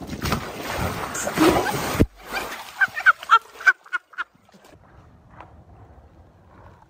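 A big splash as a man jumps onto an inflatable pool float and plunges into a swimming pool, the water churning for about two seconds and then stopping suddenly. Right after, a quick run of about six short honk-like cries.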